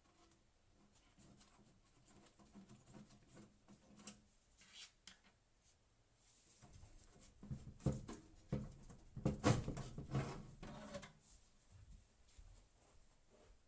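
Small clicks, taps and rustles of parts being handled, busiest and loudest from about seven to eleven seconds in.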